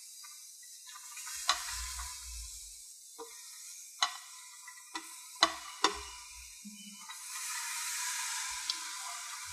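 Chopped mustard greens rustling as they are pushed by hand off a plate and drop into an aluminium pressure cooker, with a few sharp clicks along the way.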